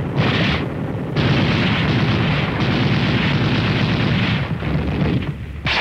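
Battle sound effects on an old film soundtrack: a short burst of gunfire, then from about a second in a long stretch of dense, continuous firing and explosions.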